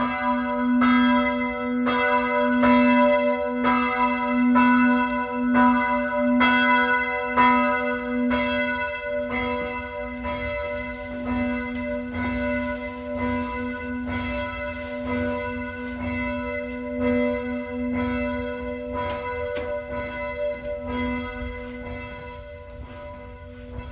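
Church bells ringing, struck about once a second at first, then more often with the strikes overlapping in a continuous peal.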